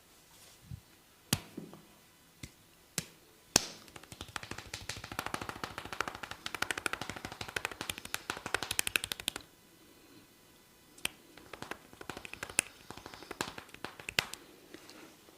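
Hands tapping quickly on a person's head during a barber's head massage. A few sharp single snaps come first, then a fast run of taps for about five seconds, then more sharp snaps and a shorter run of taps near the end.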